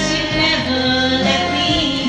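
A woman singing karaoke into a handheld microphone over a backing track, holding long notes.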